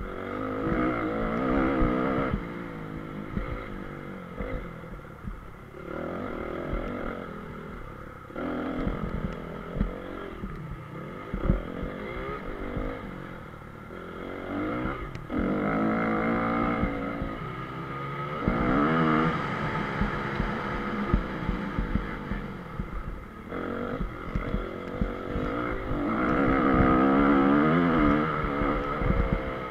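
A 2014 Honda CRF250R's four-stroke single-cylinder engine revving up and falling back again and again as the bike is ridden hard on a dirt motocross track. Sharp knocks and rattles come through from the bumps.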